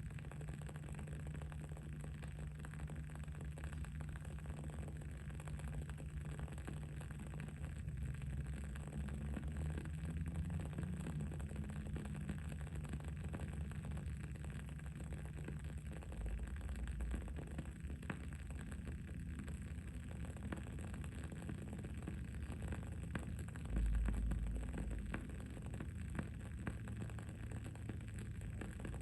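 Wood-wick candle crackling with faint, irregular small pops over a steady low background hum. A brief louder low rumble comes about three-quarters of the way through.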